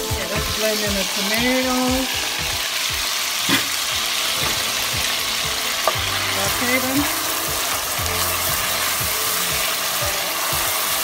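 Chopped garlic, onion, green pepper and chili sizzling steadily in olive oil in a pot as they are stirred with a wooden spoon, with two short knocks partway through.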